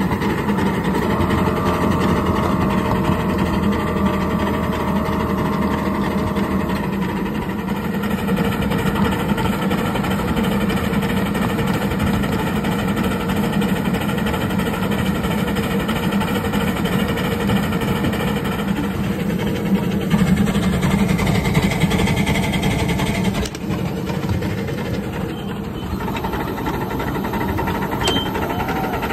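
A 7¼-inch gauge live steam locomotive modelled on Florence & Cripple Creek No.7, running along the track and heard from the driver's cab. It makes a steady, busy mechanical rhythm of its running gear and wheels on the rails.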